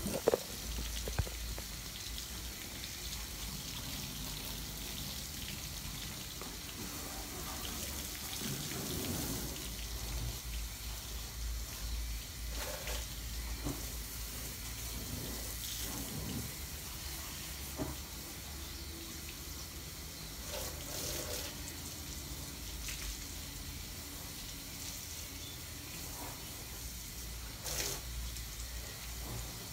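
Water spraying from a garden hose and splashing onto a car's body panels as the car is rinsed, a steady hiss with a low rumble underneath and a couple of short knocks.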